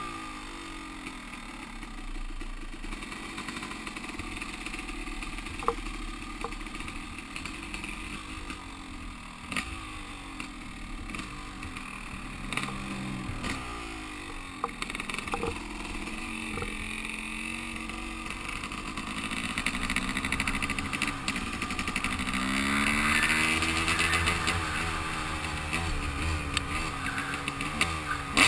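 Yamaha YZ250 two-stroke dirt bike engine running under the rider, revving up and easing off as it pulls away and rides along the street. It gets louder and revs harder in the last third.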